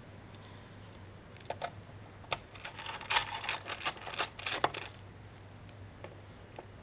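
Scattered light clicks and rustles of hands handling a laptop's plastic bottom case, bunched in the middle few seconds, over a faint low hum.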